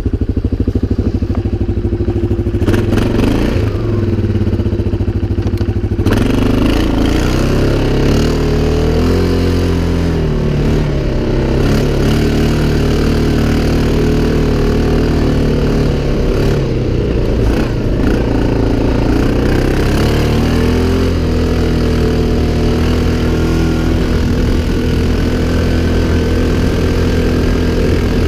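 CFMoto 500 ATV's single-cylinder engine running: steady at first, then revving up and down repeatedly, then settling back to a steady run.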